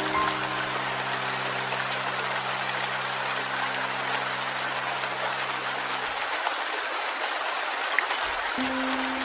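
Steady rain falling, under soft held music chords that fade out about six seconds in; a single low note comes in near the end.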